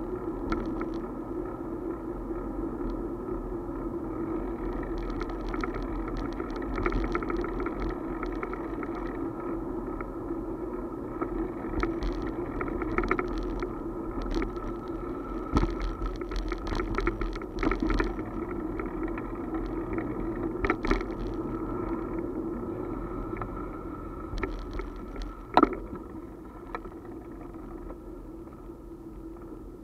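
Riding noise of a two-wheeler heard from a camera mounted on it: a steady hum from the moving machine, with irregular rattles and clicks as it rolls over bumps in the pavement and one sharper knock near the end. It gets a little quieter over the last few seconds.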